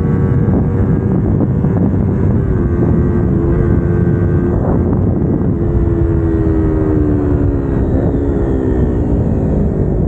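Kawasaki Ninja 250R's parallel-twin engine running hard under way; its note holds steady, then the revs fall slowly over the second half.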